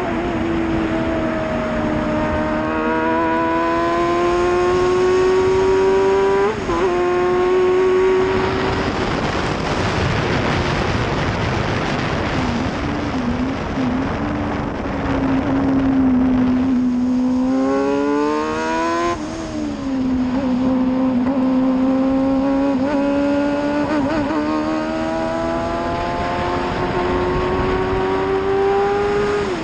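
Onboard sound of an F1000 formula car's 1000 cc motorcycle-derived engine at racing speed. The engine note climbs through each gear and drops at each upshift, with a stretch of wind rush around the middle where the engine note sinks low.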